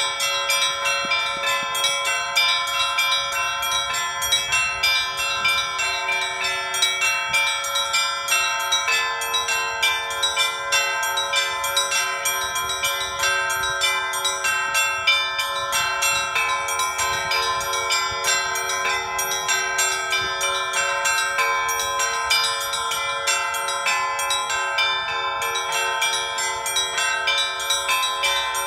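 Russian Orthodox church bells rung in a festive peal: many bells struck in a quick, continuous rhythm, their tones overlapping and ringing on without a break.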